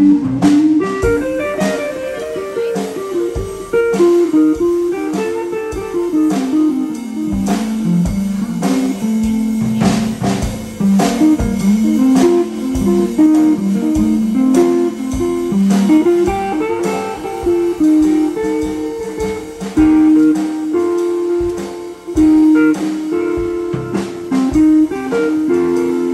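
Electric guitar playing a single-note blues lead line, with a drum kit keeping time behind it.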